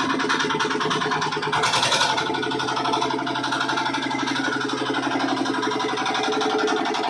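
Dongfeng R175 single-cylinder diesel engine running steadily with a fast, even pulse, with a brief louder noisy surge about two seconds in.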